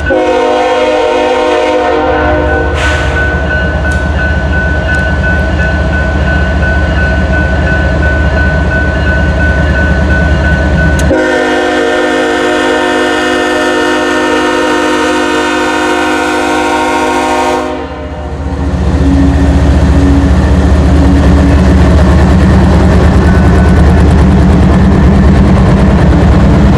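Canadian Pacific freight locomotive's air horn sounding a long chord for about the first eighteen seconds, then a loud low rumble from the train.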